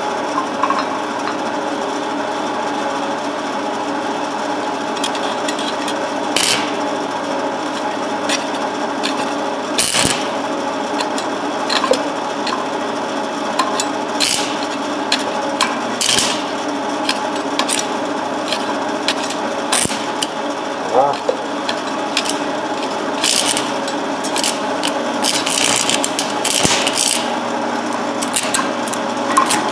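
Stick-welding arc burning a 7018 rod at about 155 amps: a steady buzzing crackle over the welder's hum, with scattered sharp pops.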